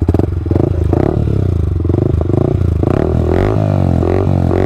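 Yamaha R15 V4's 155 cc single-cylinder four-stroke engine running through an aftermarket Akrapovic slip-on exhaust, idling with repeated short throttle blips that rise and fall in pitch, most often in the second half.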